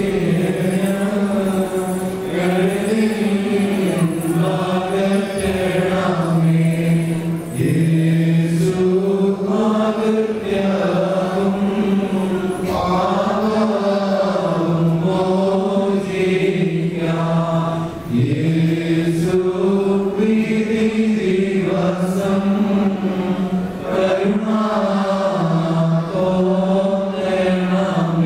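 A liturgical hymn chanted in a slow, steady melody, with short pauses for breath about 7 s and 18 s in.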